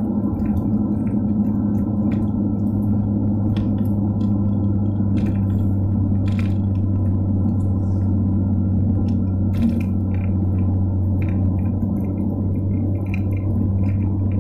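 In-cabin drone of a BMW M2 Competition's twin-turbo straight-six cruising at a steady speed: a low, unbroken hum over tyre and road noise, with scattered light ticks and knocks.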